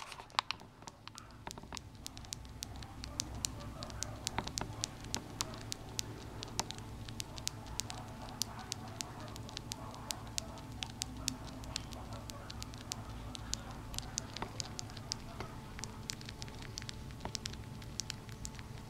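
Baby Syrian hamster nibbling food crumbs in a hand: irregular sharp little chewing clicks, a few a second, over a low steady hum.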